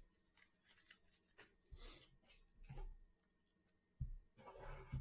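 Faint handling noises on a tabletop: scattered soft clicks and short rustles, then a longer, louder rustle about four seconds in.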